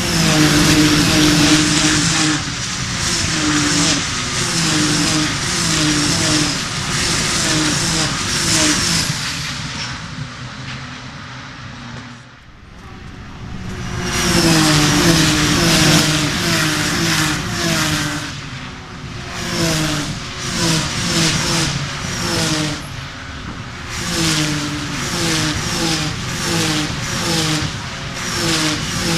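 A stream of Ginetta GT race cars accelerating past at full throttle, engines revving up again and again through the gear changes. The sound dips about twelve seconds in, then a second group of cars passes, just as loud.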